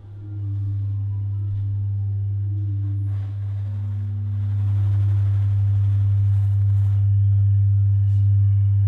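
Electric shoe-shine machine running, its motor and rotating brush roller giving a steady low hum as a sneaker is pressed against the brush. The hum starts at once and gets a little louder about halfway through.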